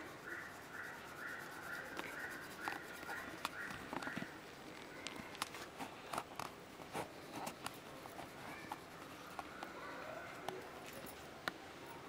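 Faint scratching and rubbing of a colouring pen on paper as a traced picture is coloured in, with scattered light clicks.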